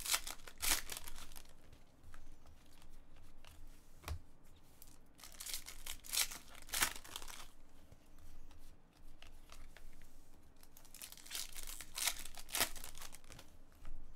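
Foil wrapper of a trading-card pack tearing open and crinkling in irregular bursts, with stiff cards rubbing and sliding against each other as they are handled.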